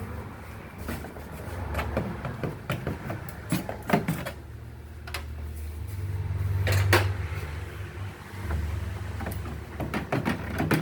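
Irregular knocks and clatter of items and parts being handled and taken out of a refrigerator, over a low rumble that swells about two-thirds of the way through.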